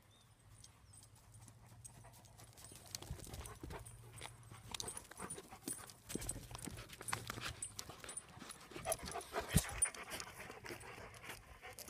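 Golden retriever panting and moving about close by, with many irregular light clicks of its steps. There is a single soft thump about nine and a half seconds in.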